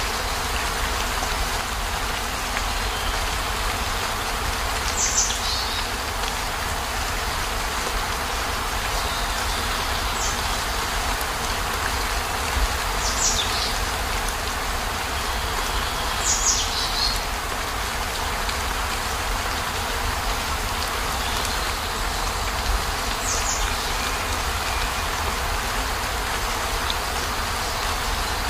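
Steady rain falling in an even hiss over a low rumble, with five brief high chirps that fall in pitch, spaced a few seconds apart.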